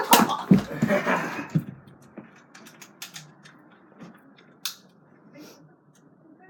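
Nerf foam-dart blaster being handled and fired: a burst of plastic clattering and clicks in the first couple of seconds, then a few single sharp clicks.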